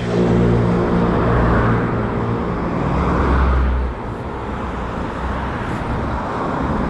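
Road traffic: a motor vehicle passing close by, its engine hum loud for the first four seconds and then dropping away, with steady traffic noise after.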